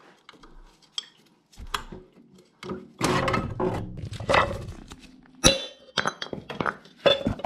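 Metal tools and parts clinking and clanking as they are handled: an irregular run of knocks and rattles, with one sharp ringing strike about five and a half seconds in.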